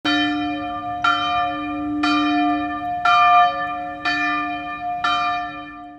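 Church bell tolled six times, about once a second, each stroke ringing on into the next, the hum dying away after the last.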